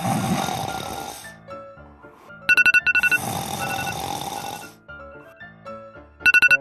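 Two long, loud snores, one at the start and one about three seconds in, over soft background music. Short bursts of rapid electronic beeping come twice, a little before the second snore and near the end.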